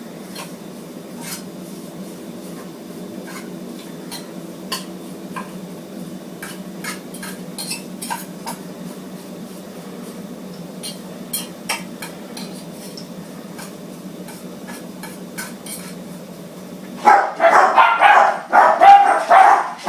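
Light clicks and scrapes of a utensil working a sawdust-and-wax mix in a metal tin, over a low steady hum. About 17 seconds in a dog starts barking loudly and repeatedly, the loudest sound here.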